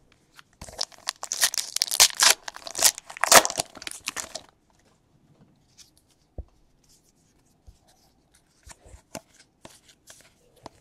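Trading-card pack wrapper being torn open, crinkling and tearing for about four seconds, followed by a few faint light taps.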